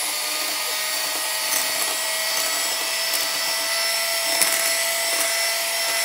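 Electric hand mixer running at a steady speed, its motor whining at a constant pitch as the beaters whisk egg, milk and oil in a stainless steel bowl, with a few faint ticks.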